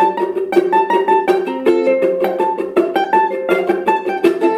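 Two ukuleles played together in a quick, even strumming rhythm of about five strokes a second, with the notes changing as the tune moves along.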